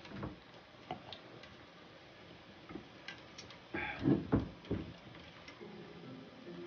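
Light clicks and clinks of chopsticks, a ladle and tableware against a steel hot pot and dishes, with a few louder knocks about four seconds in.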